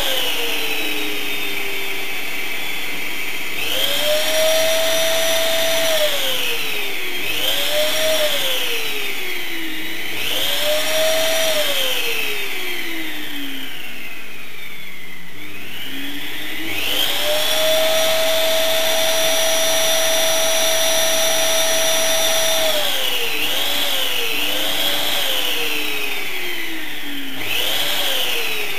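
Vacuum cleaner running continuously. Its motor whine rises to a higher pitch, holds, and falls back again several times, with two long held stretches.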